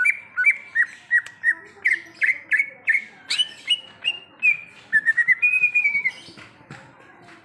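Cucak ijo (green leafbird) singing: a run of loud, clear whistled notes, about three a second, some sliding in pitch, then a quicker run of notes before the song stops about six seconds in.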